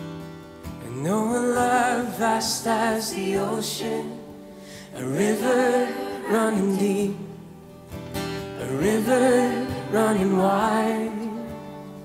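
Live worship band playing, with guitars and drums under held chords. A lead melody rises into three long, wavering phrases, about four seconds apart.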